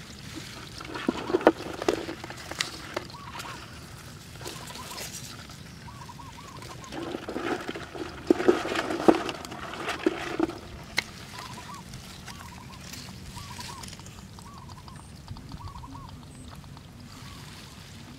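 Rustling and handling noises from hands working among leafy vines and picking up eggs, with sharp clicks and knocks in two clusters. Faint short warbling calls repeat in the background.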